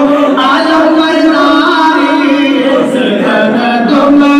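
A group of men singing a devotional chant without instruments, one voice leading into a microphone, in long held notes.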